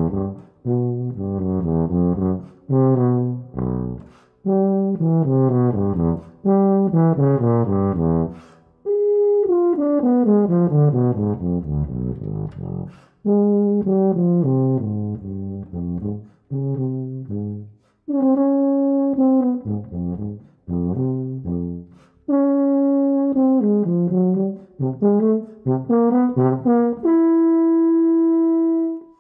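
Unaccompanied valved low brass instrument playing a tango melody: quick runs of short detached notes, a long falling run of notes about ten seconds in, and a long held note near the end.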